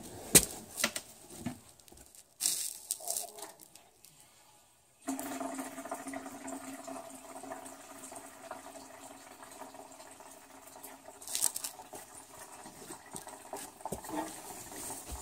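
A few handling clicks and knocks, then from about five seconds in a steady run of water with gurgling. It comes from the water heater's plumbing as the full tank is checked to be airlocked, held by vacuum so the water stays in while the gas control valve is off.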